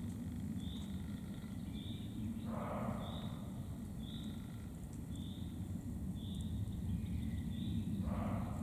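Roe deer giving two short, harsh, breathy snorts about five seconds apart. Behind them are a steady low rumble and a high chirp repeated about once a second.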